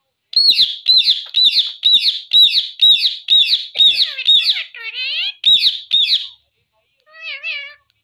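Rose-ringed parakeet calling: a rapid run of about a dozen sharp, high chirps, about two a second, then a short warbling call near the end.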